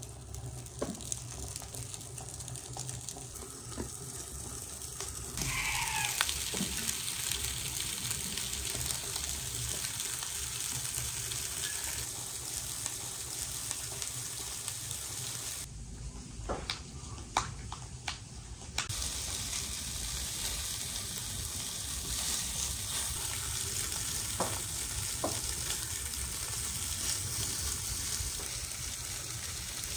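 Raw minced-meat kebabs sizzling as they fry in a preheated nonstick pan, the hiss swelling as more pieces go in. It breaks off for a few seconds past the middle, where a few sharp clicks sound, then carries on steadily.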